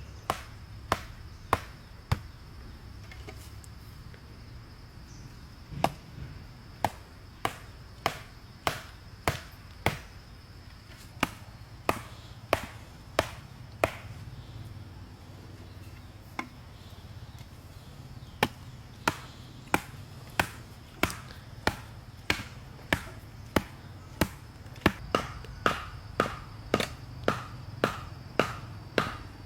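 A hand tool striking wood over and over, about two blows a second, in runs with a pause of a few seconds midway. The blows near the end ring slightly.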